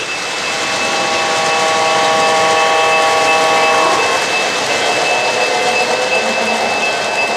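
Lionel N&W Bicentennial O-gauge model freight train rolling past on three-rail track, a steady rumble of wheels and cars. A held tone of several notes sounds from about one to four seconds in, over a faint steady high tone.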